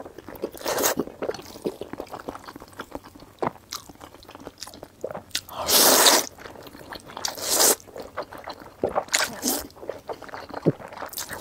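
A person slurping and chewing oily Nanchang mixed rice noodles in irregular wet bursts. The longest and loudest slurp comes about six seconds in.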